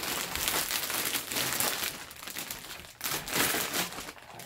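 Plastic bag packaging crinkling and crumpling as it is handled and pulled open around a heavy bag of rock, with a short lull about three seconds in.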